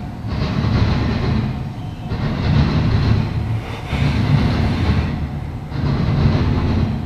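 Double-stack intermodal freight train's well cars rolling past at speed with a loud rumble and wheel noise. The noise swells and dips in a regular rhythm about every two seconds as the cars go by.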